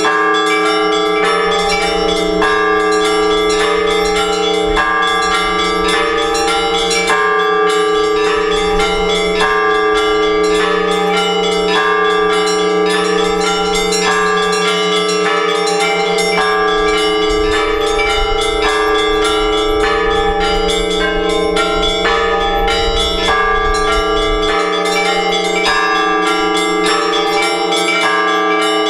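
Orthodox church bells ringing together in a peal: small bells struck rapidly in a figure that repeats every couple of seconds, over the steady hum of larger bells.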